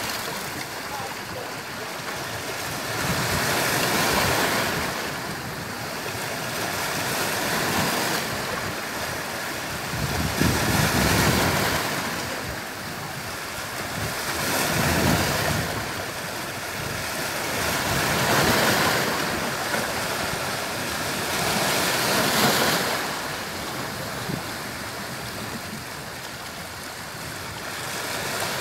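Sea waves breaking and washing up the shore, surging about every three and a half to four seconds, six times.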